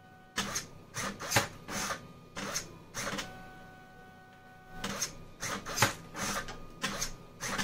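Automatic wire cutting and feeding machine cycling: runs of short buzzes and clicks from the hobby servo swinging the cutter, with a steady whine of the stepper-driven 3D-printer extruder feeder pushing wire through for about a second and a half midway.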